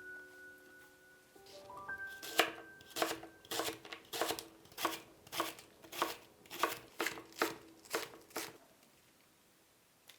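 Knife chopping green onions on a cutting board: about a dozen even, crisp strokes, a little under two a second, starting about two seconds in.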